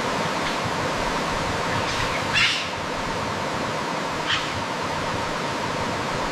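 Rainforest ambience: a steady hiss of background noise with a few short bird calls over it, the loudest about two and a half seconds in.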